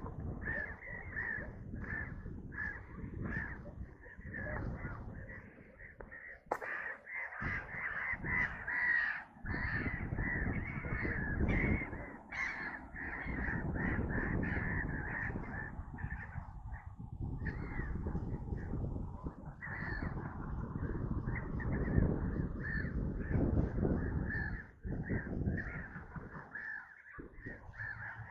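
A group of birds calling loudly and over and over, harsh caw-like cries one after another, over a low steady rumble.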